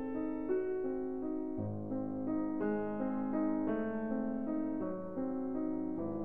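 Background piano music: held notes and chords in a gentle melody.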